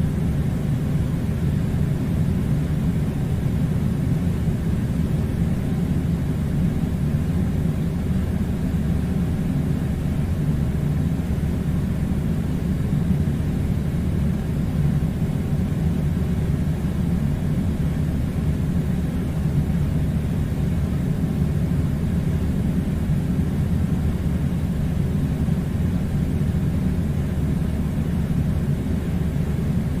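Air conditioner running with a steady, unchanging low rumbling hum.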